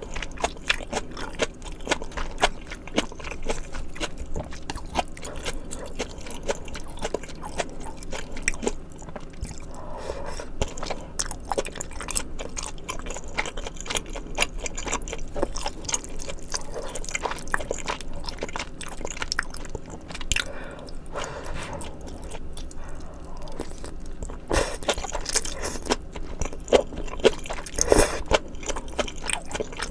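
Close-miked chewing of spicy malatang, with a steady run of small wet mouth clicks and bites.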